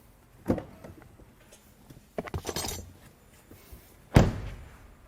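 Tools and engine parts being handled during an engine teardown: a knock, a short clatter of metal clicks, then a louder thunk near the end.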